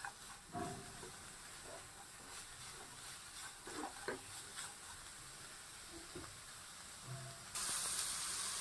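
Grated carrot, green beans and onion sizzling faintly in oil in a non-stick kadhai on a high-medium flame, cooking off their moisture, while a silicone spatula stirs them with a few soft scrapes. About seven and a half seconds in the sizzle turns suddenly louder and steadier.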